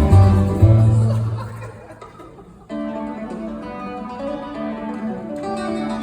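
Acoustic folk band playing a tune, guitar and plucked strings over a deep bass; the playing fades out about two seconds in, and a softer passage with held notes comes in just under a second later.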